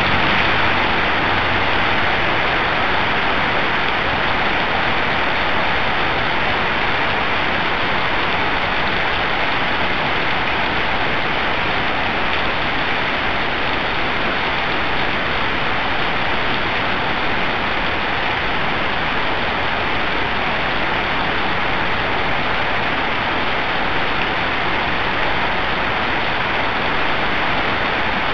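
Heavy rain pouring steadily onto a paved street, a constant even hiss with no breaks.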